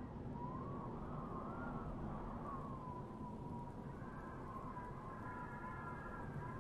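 Eerie trailer underscore: a thin, wavering tone gliding slowly up and down over a low rumbling drone.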